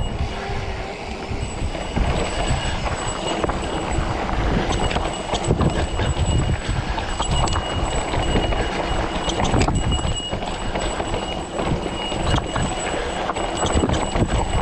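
Mountain bike rolling over a rough, rocky trail: tyres and frame rattling with a dense run of irregular knocks and a low rumble, and a faint steady high whine underneath.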